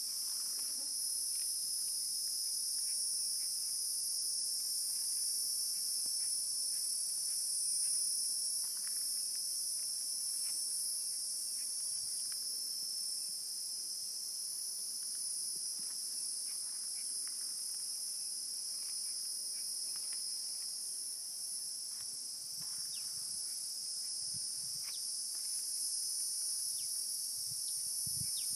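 Steady, high-pitched chorus of many insects shrilling together without a break, with faint short chirps scattered through it.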